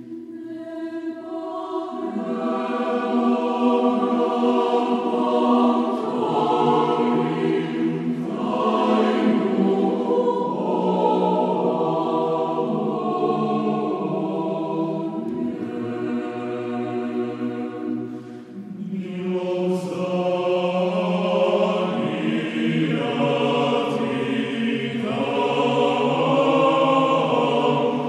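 Serbian church choir singing a slow chant in held, changing chords, with a short break between phrases about two-thirds of the way through.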